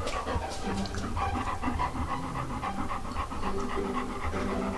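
Golden retriever panting with quick, even breaths.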